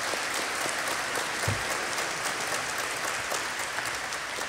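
Audience applauding: a steady patter of many hands clapping, easing off slightly near the end, with one short low bump about a second and a half in.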